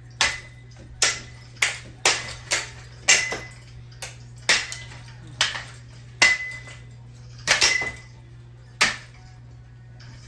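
A ceiling fan being struck over and over: about a dozen hard, clattering metallic hits at uneven intervals, roughly one a second, several leaving a brief ringing tone.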